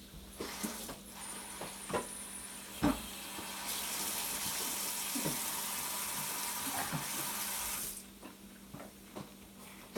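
Water running from a tap for about four seconds, starting and stopping abruptly, after a few knocks and clicks.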